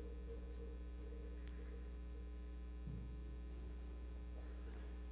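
Steady electrical mains hum: a low buzz with its overtones, unchanging throughout. A faint brief sound about three seconds in.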